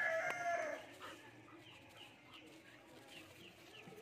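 A rooster's crow trails off within the first second. Then comes a quick run of short, high, falling chirps from a small bird, about four a second.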